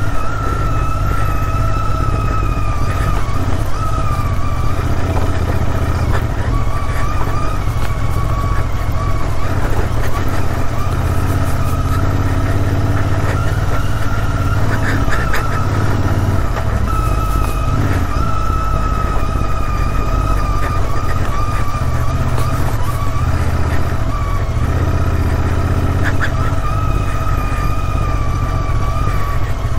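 Royal Enfield Interceptor 650's parallel-twin engine pulling the bike along a rough dirt track, its low-down torque carrying it through. A steady whine sits over a deep rumble, with a few brief knocks about halfway through.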